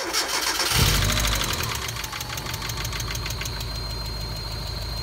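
Mazda Miata 1.6-litre four-cylinder engine starting: a brief crank, then it catches about a second in, flares up and settles into a steady idle with a fast ticking. A high-pitched whine comes in near the end, which the owner can't account for.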